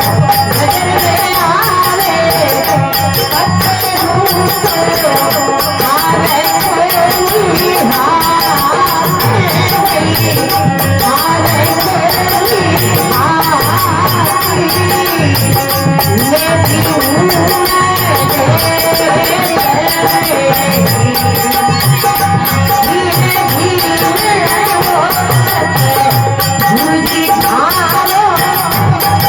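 Rajasthani devotional folk music: a bhajan sung over a fast, steady jingling rhythm from hand percussion, with a gliding melodic line throughout.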